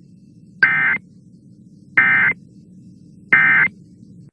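Emergency Alert System end-of-message signal: three short bursts of warbling digital data tones, evenly spaced about a second apart, marking the close of the tornado warning broadcast.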